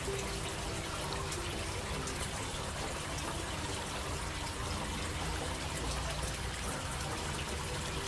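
Water from a tiered bowl cascade fountain trickling and splashing steadily as it spills from bowl to bowl into its basin.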